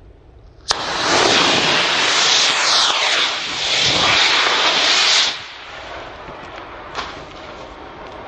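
Estes D12-3 model rocket motor firing on a mousetrap car: it lights suddenly and burns with a loud hissing roar for about four and a half seconds, with a falling tone in the middle, then cuts off sharply to a softer hiss. A single sharp pop comes near the end.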